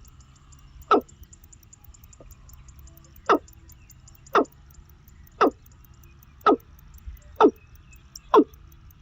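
A bird repeating a short, sharp call seven times, about once a second after a two-second pause following the first call.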